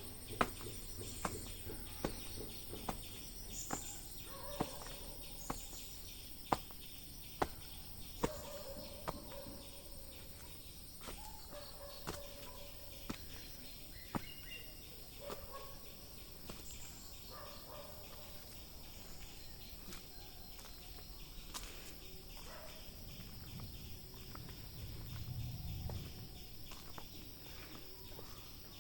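A series of sharp knocks, about one a second for the first nine seconds, then scattered, with birds calling. A low rumble swells and fades near the end.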